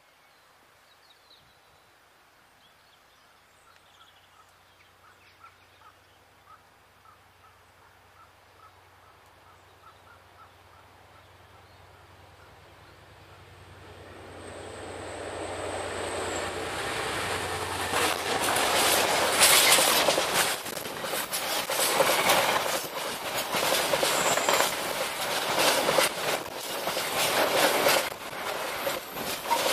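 An Irish Rail 071 class diesel locomotive, with an EMD twelve-cylinder two-stroke engine, approaches with a low engine drone that builds up over the first half. It passes close and loud a little past halfway, with a thin high ringing from the wheels and rails just before. A long string of empty timber wagons then rumbles and clatters past over the rail joints.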